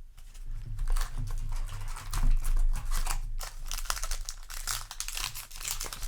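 Foil Yu-Gi-Oh! booster pack wrapper crinkling as it is handled and torn open, an irregular run of crackles and rustles.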